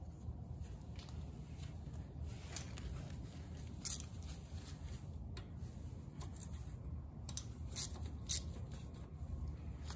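A hand tool working at a small single-cylinder motorcycle engine's cylinder head: light handling noise and a few sharp metal clicks, over a low steady hum.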